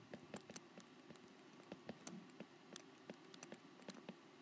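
Faint, irregular clicks and taps of a stylus on a tablet screen as words are handwritten, several a second.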